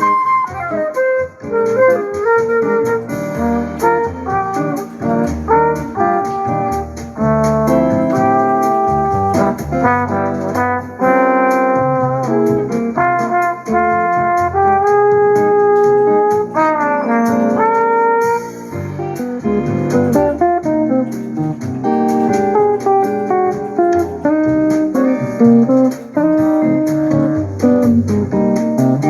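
Instrumental music played on a T-2359 portable Bluetooth speaker as a bass test, with a melody of held notes over a continuous bass line.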